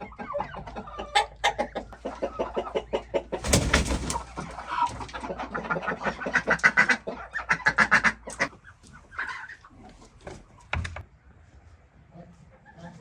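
A flock of chickens clucking rapidly and continuously, with a brief loud burst of noise about three and a half seconds in. The clucking dies away after about eight seconds, leaving quieter sounds and a single knock.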